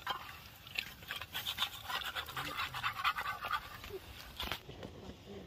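A knife scraping against a metal plate: a fast run of short rasping strokes that builds about a second in and stops about three and a half seconds in.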